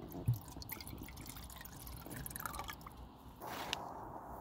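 White wine poured from a glass bottle into a metal camping pot, splashing and dripping, with a light knock as the pour begins. Near the end, a single short snap of a branch breaking close by.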